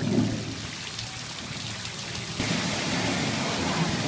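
Steady hiss of falling water, growing louder and brighter about two and a half seconds in, with a short low bump right at the start.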